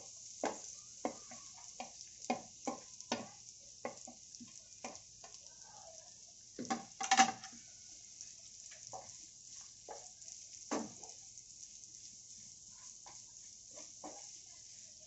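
Chopped onions sizzling in hot oil in a non-stick frying pan while a spatula stirs them, scraping and knocking against the pan. The knocks come often for the first eleven seconds or so, loudest about seven seconds in, then thin out, leaving mostly the steady sizzle.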